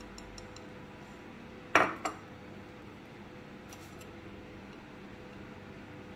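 Two sharp clinks of kitchenware, about a third of a second apart, each with a brief ring: a ceramic bowl and a metal-handled spatula knocking together. A few faint ticks come before and after, over a faint steady hum.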